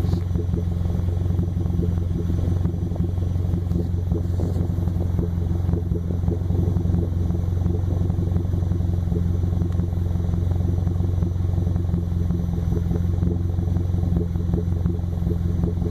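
Mazda 3 engine idling with a muffler-deleted exhaust and a cold air intake: a steady, fairly loud rumble with a bit of a sputter, a rough idle that the owner is unsure the intake and muffler delete alone can explain.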